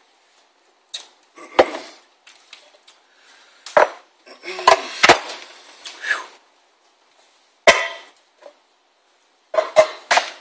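Hard objects handled on a workbench: a series of sharp knocks and clatters with rustling between them, as a hard motor container is opened and set down.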